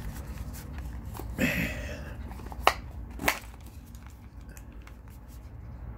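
Small white cardboard product boxes being handled and opened by hand: soft scraping and rustling with scattered light clicks, and two sharp snaps about half a second apart near the middle.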